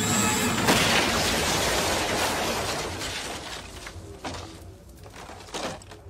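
Film sound effect of a blast: a sudden loud rush of noise about a second in that slowly dies away, followed by a few separate crashes of breaking, shattering debris near the end.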